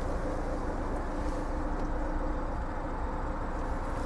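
Steady low hum inside the cabin of a 2016 Ford Escape, its 1.6-litre four-cylinder EcoBoost engine idling, with faint steady tones under an even noise.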